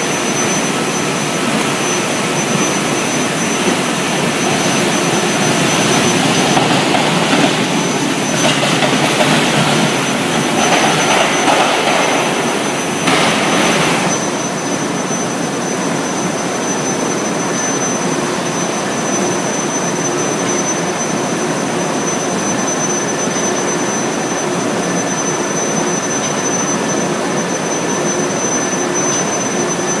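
Steady loud industrial running noise of a steel-mill induction billet heating line and its roller conveyors, with a thin high whine throughout. The noise swells for a stretch in the middle.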